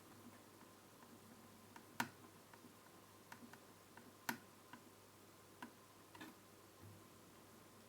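Faint scattered clicks and taps of a circuit board being worked into place in a flat-screen TV's chassis, with two sharper clicks about two and four seconds in.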